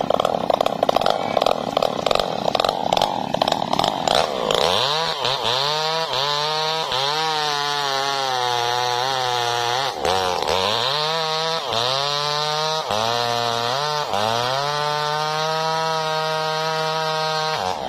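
Two-stroke chainsaw cutting into wood for the first few seconds, then run free and revved hard again and again, its engine note climbing and dropping with each blip of the throttle. Near the end it is held at steady high revs.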